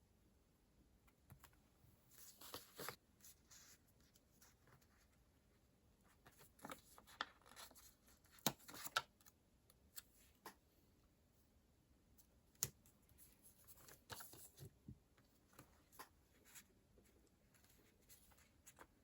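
Faint, scattered handling sounds of paper and stationery: short rustles, light taps and a few sharp clicks, busiest in the middle.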